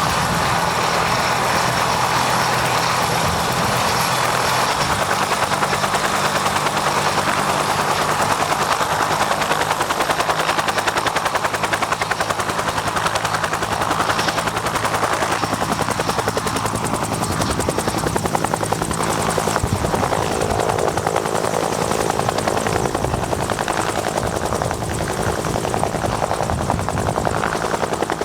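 Agusta-Bell 205 (UH-1 Huey) helicopter running: the turbine engine whines while the two-blade main rotor turns with a rapid, even chop. The whine is strongest in the first half and eases a little later on.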